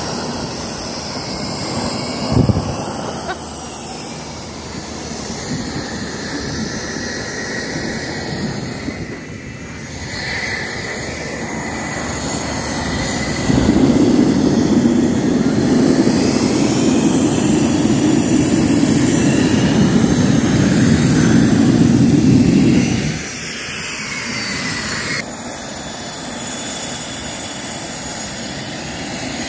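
Homemade model jet turbine on an ice sled running with a high whine that rises and falls in pitch. A sharp pop comes about two seconds in. From about halfway, a much louder roar lasts about nine seconds, then drops back.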